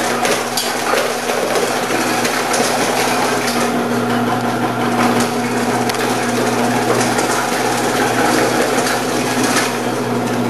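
Electric commercial vegetable cutter running with a steady motor hum while carrots are pushed down the feed chute onto a 2 mm slicing disc, with a continuous crunching and snapping as the blade cuts through them.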